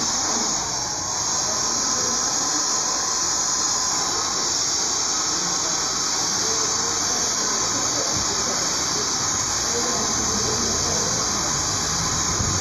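Handheld hair dryer running steadily, a constant airy hiss, as it blow-dries damp hair.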